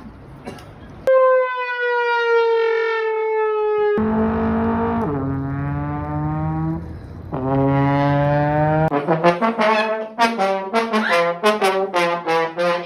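A brass instrument plays comic sound-effect phrases. After a quiet first second it holds a long note that sinks slightly in pitch, then plays two lower notes that each slide downward. From about nine seconds in it plays a fast run of short, choppy notes.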